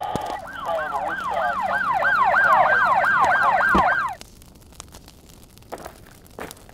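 Fire engine siren sound effect in a fast yelp, wailing up and down about three times a second, which cuts off suddenly about four seconds in. A few faint clicks follow.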